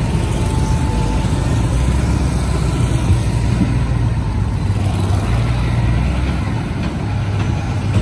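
Steady low drone of heavy engines and road traffic: a wheel loader and a truck running close by while motorbikes and cars pass.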